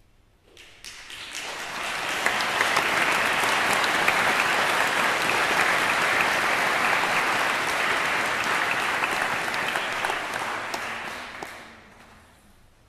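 Congregation applauding: the clapping builds up over the first two seconds, holds steady, then dies away near the end.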